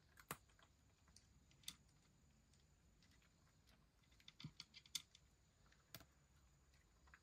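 Domestic cat eating from a shallow wooden dish: faint, scattered crisp clicks of chewing, with a quick run of clicks about four to five seconds in. The cat is hungry and eating eagerly.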